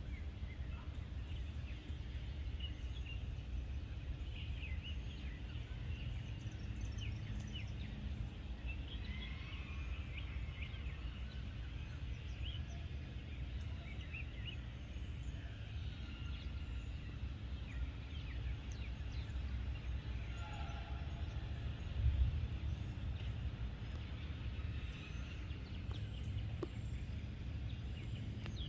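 Outdoor ambience: scattered short bird chirps over a steady low background rumble, with one brief low bump about two-thirds of the way through.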